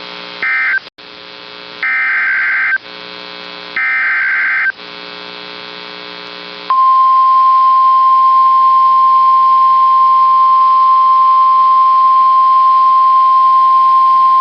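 NOAA Weather Radio alert signal: three short bursts of harsh, warbling SAME digital header data, then about seven seconds in the long, steady single-pitched warning alarm tone starts and holds, over a low radio hum. The sequence marks a new warning being issued.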